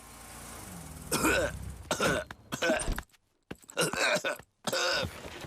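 Voice-acted coughing of a sick cartoon bear: several short fits of coughs beginning about a second in, with brief silences between them.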